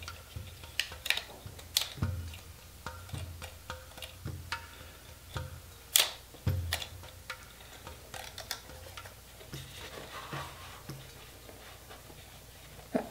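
Irregular light plastic clicks and soft knocks from a folded Parrot Anafi drone being handled in its hard case, its arms and propellers being checked; the sharpest click comes about six seconds in.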